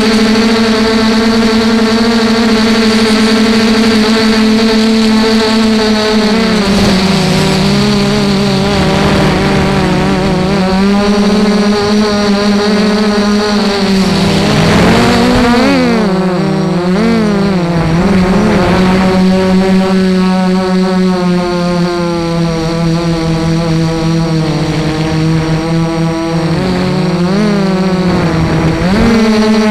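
Brushless motors and propellers of an Armattan Rev2 FPV quadcopter whining in flight, picked up by the camera on the quad. The pitch holds steady at first, drops a little about six seconds in, then wavers rapidly up and down near the middle as the throttle changes.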